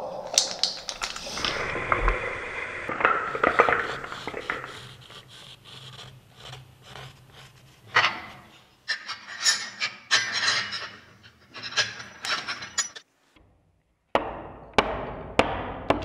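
Hand woodworking on wood: rubbing and scraping for the first few seconds, then scattered sharp wooden knocks and clicks. After a brief silence near the end comes a quick run of sharp knocks as a chisel cuts into the wood.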